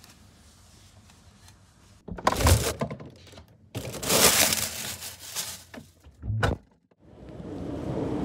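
Thin plastic carrier bag handled and rustled close to the microphone, in several loud crinkling bursts. Near the end a steady rush of wind on the microphone builds up.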